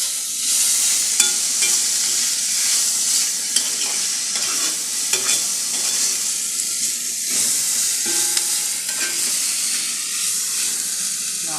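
Seasoned vegetables frying in a hot pan while being stirred: a steady sizzle, with the utensil clicking and scraping against the pan now and then.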